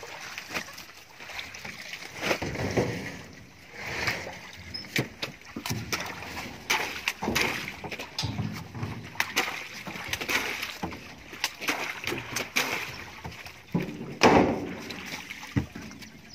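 Water splashing and sloshing in a banana washing tank as hands of green bananas are dropped in and moved through it, with irregular knocks and thuds of the fruit being handled.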